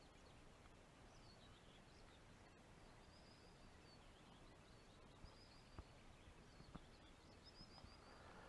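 Near silence with faint songbird chirping: short, high, curving phrases repeating throughout. A few soft ticks come in the second half.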